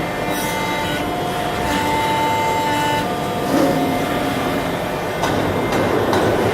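CNC hydraulic press brake running: a steady mechanical hum with whining tones that step between pitches, and a few clicks.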